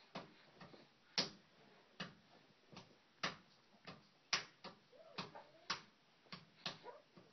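Sharp knocks and clicks from a crib rail, about two a second at an uneven pace, as a standing baby holding the rail rattles and bangs it.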